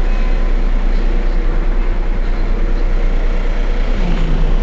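Heuliez Access'Bus GX 127 midibus's diesel engine idling steadily at a stop, a deep even rumble, with a low tone dipping briefly about four seconds in.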